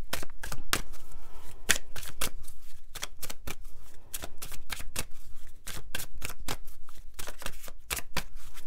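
Tarot cards being shuffled by hand: a quick, irregular run of sharp card clicks, several a second.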